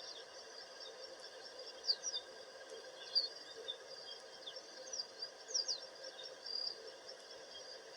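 Outdoor ambience with a steady, high insect chorus and birds giving short, falling chirps several times.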